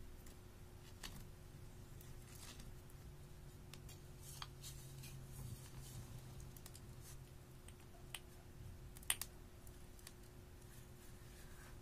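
Faint scattered clicks and soft crackles of glitter slime being handled and squeezed through a handheld garlic press, with one sharper click about nine seconds in.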